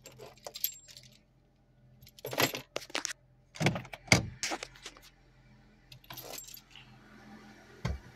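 Metallic clinking and jangling from handling inside the car cabin, in several short rounds, over the faint steady hum of the Honda Civic's engine idling just after a cold start.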